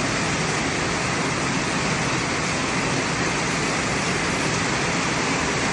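Heavy rain pouring down in a storm: a steady, dense hiss without a break.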